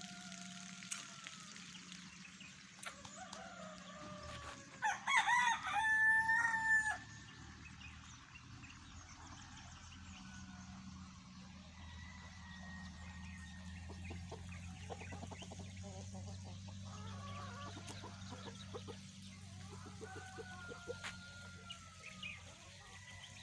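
Free-range rooster crowing once, loud, about five seconds in: a few short notes and then a long held note of about two seconds. Fainter bird calls come and go around it over a steady low hum.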